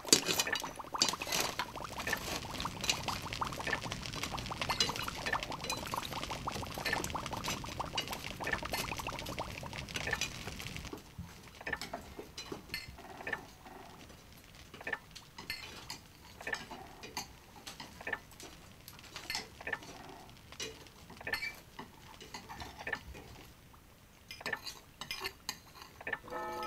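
Spoon and crockery clinking: a spoon knocking against earthenware bowls and dishes at a farmhouse table. The first ten seconds or so are busy with dense clicking and rattling; after that come scattered single clinks about once a second.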